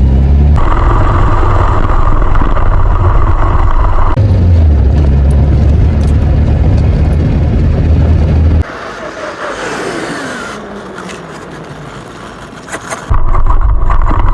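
Loud, steady low rumble of a vehicle running during a drag race. About eight and a half seconds in it drops away sharply and a whine falls steadily in pitch for a few seconds as a vehicle slows, then the loud rumble comes back near the end.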